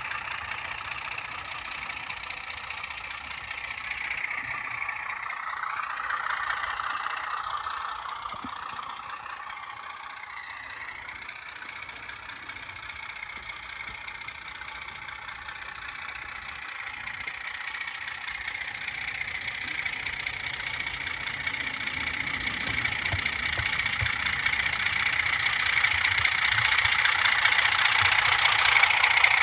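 Simulated Class 31 diesel engine sound from a Hornby TTS sound decoder, playing through the model locomotive's small speaker as it runs with its coaches. It gets steadily louder over the last third as the model comes towards the microphone.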